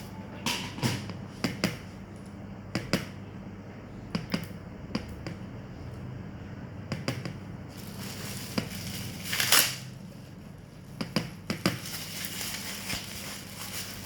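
Handling noises of items being unpacked: scattered clicks and small knocks with rustling, and one louder rustle or scrape about nine and a half seconds in.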